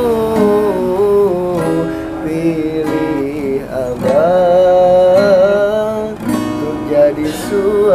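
An acoustic guitar strummed by a man who sings along to it, a love song in Indonesian, holding one long note in the middle.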